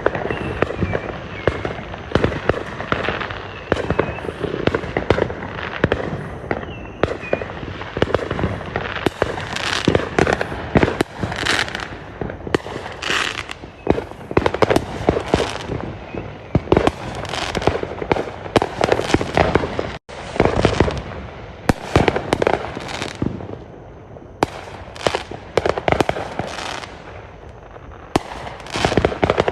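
Fireworks display: a dense, continuous barrage of overlapping bangs and crackling bursts, with a momentary dropout about two-thirds of the way through.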